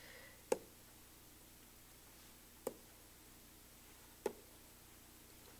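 Three short, faint clicks about two seconds apart in a quiet room: the clicks of the drawing input as each new arrow is started on a computer sketch.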